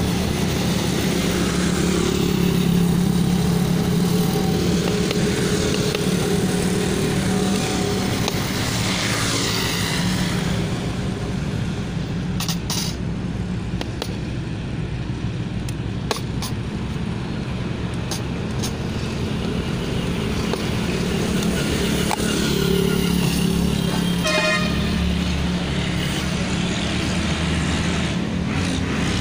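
Steady roadside traffic noise with a vehicle horn sounding briefly, and a few short sharp clicks.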